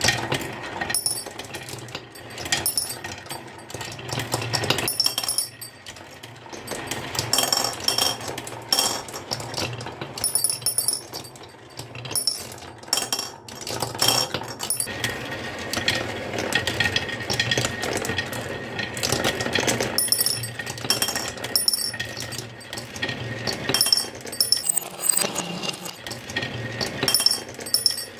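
Marbles rolling and clacking down a wooden marble run: a steady rolling rumble under many quick clicks and clinks.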